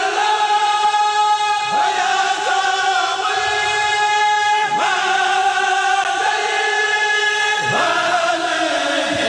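A men's kurel choir chanting a Mouride khassida together, unaccompanied, in long held notes of about three seconds each, joined by quick slides in pitch at each phrase break.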